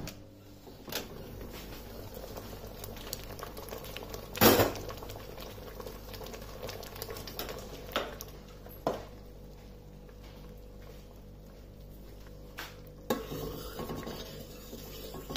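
A stainless steel pressure cooker being opened: a few clicks from the lid and one loud metal clank about four seconds in. Near the end, a steel spoon stirs the cooked lentil dal in the pot, scraping against the steel.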